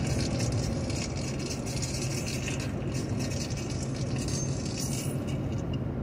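A car driving along a highway: steady road and engine noise with a low hum underneath.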